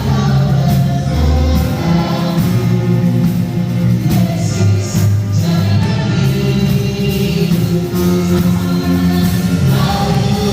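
Indonesian praise song sung by several voices with band accompaniment, over a steady beat.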